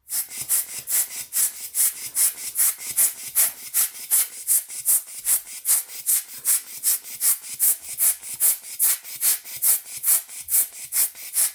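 Rapid, rhythmic puffs of air, about four a second, hissing as they are blown into a phone's USB charging port to drive out water behind a moisture-detected warning.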